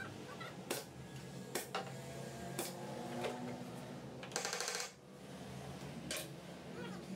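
Sharp clicks and knocks of workshop work, roughly a second apart, with a brief hiss lasting about half a second just past the middle, over a low steady hum.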